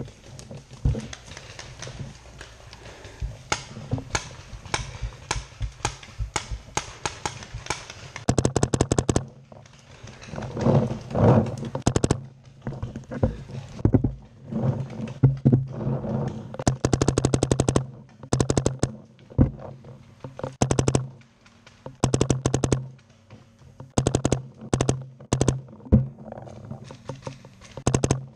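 Paintball markers firing rapid strings of shots: repeated volleys of quick sharp pops with short pauses between them, the densest strings about a third of the way in and through the second half.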